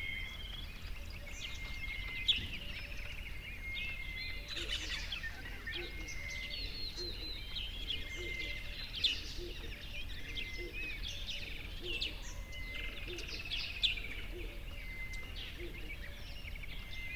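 Many small birds chirping and twittering together in a busy, continuous chorus over a low steady hum, with a few brief louder notes.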